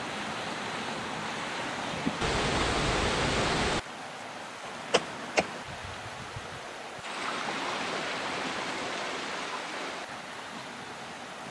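Steady rushing background noise, which jumps up and down in level a couple of times, with two sharp clicks about five seconds in as gear is packed into a rucksack.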